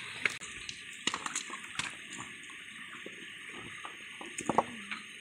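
Stones and shells clicking and knocking against each other as hands turn over rocks on a wet rocky shore, a handful of sharp taps scattered through, over a steady hiss of shallow water. A faint voice is heard near the end.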